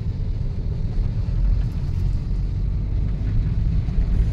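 Steady low rumble of a car's engine and road noise, heard from inside the cabin as the car moves slowly.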